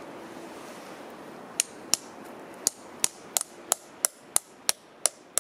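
A small aluminium tube being knocked into a hole in a birch trunk as a sap spout: about eleven sharp taps, starting about a second and a half in and coming roughly three a second.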